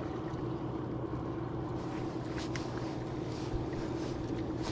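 A boat motor running with a steady low hum under a bed of water and wind noise.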